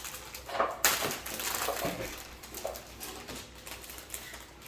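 Clicking and rustling from handling plastic-bagged Lego pieces and packaging, with a rustle about a second in, and dogs barking in the background.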